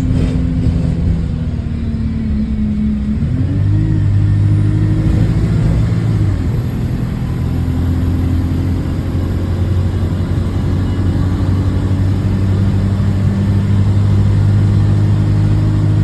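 A bus's diesel engine and exhaust heard from on board, changing pitch a few seconds in as it pulls away, then running at a steady speed. The bus has an exhaust leak.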